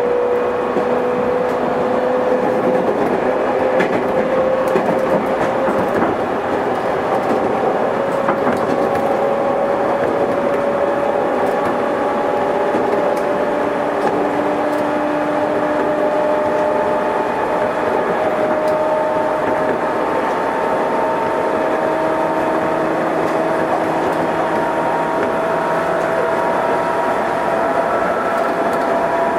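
JR West 213 series 0 subseries electric train under way: the traction motors' whine rises slowly and steadily in pitch as the train gathers speed, over a steady rumble of wheels on the rails.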